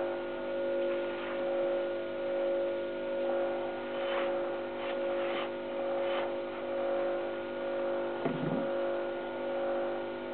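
Small wood lathe running with a steady hum that swells and fades about once a second. Several short scraping sounds come from the work against the spinning piece about halfway through, and there is a brief low knock near the end.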